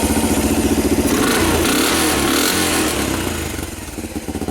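1983 Kawasaki KLT 200C's single-cylinder four-stroke engine idling, then revved about a second in and settling back toward idle near the end, without stalling. The throttle is taken cleanly after a carburetor swap and the stock Kawasaki throttle replaced a dirt-bike throttle that made it cut out.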